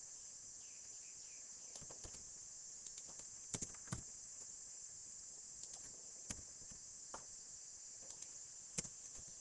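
Sparse, faint clicks of a computer keyboard and mouse, about a dozen scattered irregularly, over a steady high-pitched hiss.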